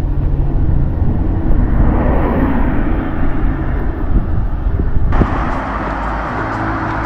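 Road traffic passing close by: a vehicle's engine hum with tyre and road noise, changing abruptly about five seconds in to a steadier traffic hiss.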